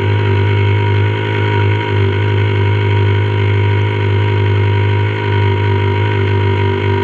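Radio-controlled model boat's motor running steadily underway, a loud constant drone with an unchanging pitch.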